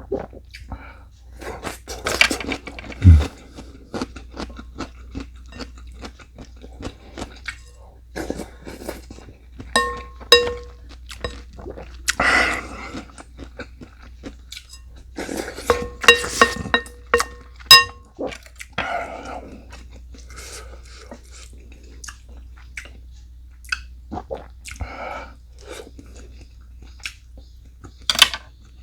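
Close-up eating sounds: chewing and crunching of food, with a few ringing clinks of utensils against a dish around the middle.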